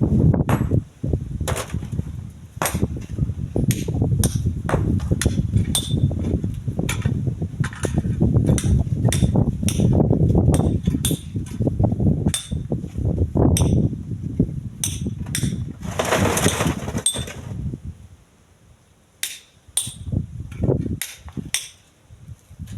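Strong wind buffeting the microphone as a heavy low rumble that drops away about three-quarters of the way through, with many sharp, irregular knocks and clicks throughout and a brief hissing rush shortly before the wind dies down.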